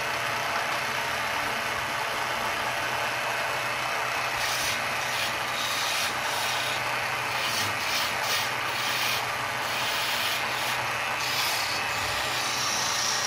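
Wood lathe running with a steady motor hum while a hand-held turning tool cuts a spinning wooden baluster, a hissing scrape that comes and goes in short strokes as the tool is pressed in and eased off.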